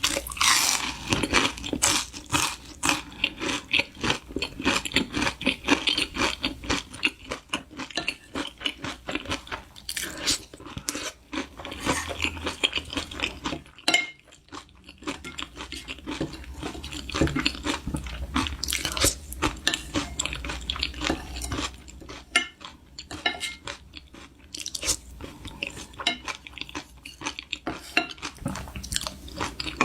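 Close-miked chewing and crunching of a fried, breaded whole-shrimp cutlet: rapid crisp crunches come in dense runs, with a brief lull about halfway through.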